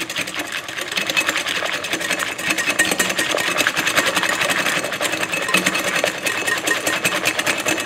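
Egg whites with a pinch of salt being beaten by hand in a glass bowl: a utensil strikes the glass in rapid, even clicks as it whips air into the whites.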